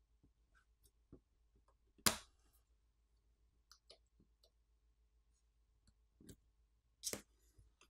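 Scattered light clicks and taps of fingers handling the opened e-ink tablet's battery and flex-cable connectors. The sharpest click comes about two seconds in, with two more near the end.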